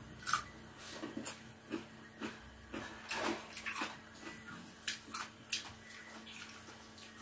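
Close-up eating sounds of boiled unripe saba bananas: irregular wet clicks and smacks of biting and chewing, about two a second.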